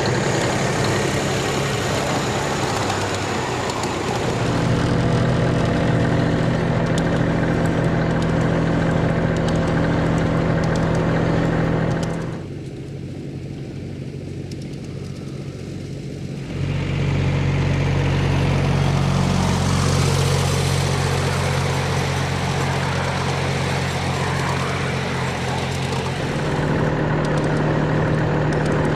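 Engine of a ride-on miniature train running steadily, with wheels on the rails, as it travels along the track. It drops quieter for a few seconds near the middle, then picks up again.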